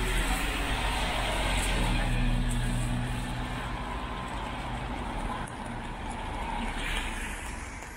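Road traffic on rain-wet asphalt: the steady hiss of tyres on the wet road with a vehicle's engine running as it passes, loudest about two seconds in, then fading away near the end.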